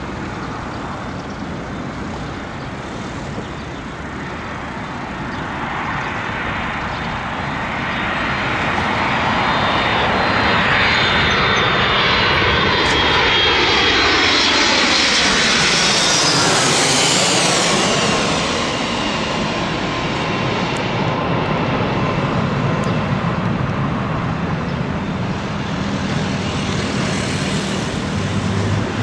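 Boeing 757-200 airliner's jet engines on landing approach, growing louder as it comes in low and passes overhead. A high engine whine falls in pitch as it goes over, then the jet roar eases off a little as the aircraft moves away toward the runway.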